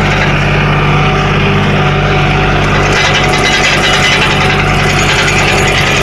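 Dongyang T553 tractor's diesel engine running steadily while pulling a moldboard plough through a flooded paddy, not labouring: the owner credits a well set-up plough for the light load. A hiss in the upper range grows louder about halfway through.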